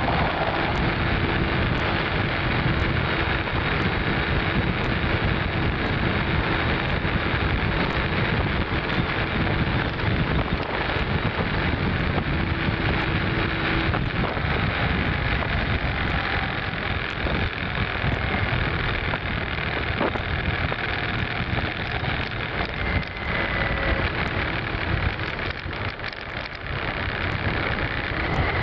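Wind rushing over the microphone of a motorcycle riding at road speed, with a low engine and road rumble underneath.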